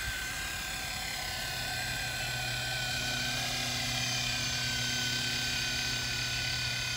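Amewi LAMA RC model helicopter's electric rotor drive running with a steady high whine, throttled up toward hovering speed; a deeper hum strengthens a couple of seconds in.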